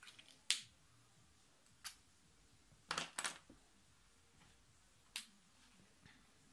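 Sharp clicks and taps from a pen and ruler being handled on a desk. The loudest click comes about half a second in, single taps come near two and five seconds, and a quick double tap comes about three seconds in.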